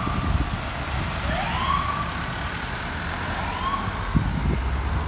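Fire truck siren sounding a repeating rising wail, one rise about every two seconds, growing fainter as the truck pulls away, over a low rumble of traffic.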